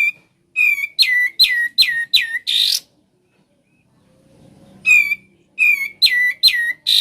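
A kapas tembak songbird singing loud 'ngebren' phrases, twice. Each phrase is a quick run of five or six clear whistled notes, each sliding sharply downward, and ends in a short harsh burst.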